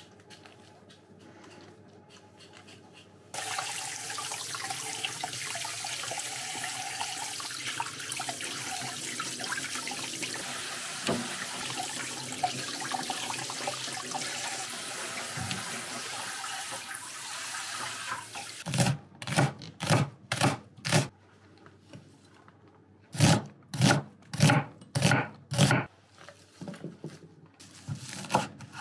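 About three seconds in, a kitchen tap starts running into a steel bowl in the sink while soft cod milt is rinsed by hand under it. The tap stops, and a knife then chops leafy greens on a wooden cutting board: a run of quick strokes, a pause, a second run, and a few lighter cuts near the end.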